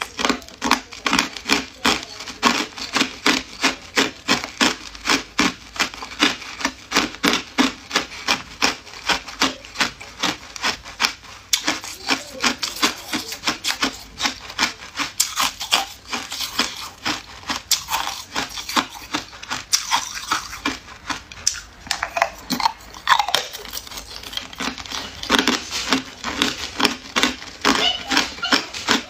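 Hard ice cubes being bitten and chewed: rapid, even crunching, two or three crunches a second.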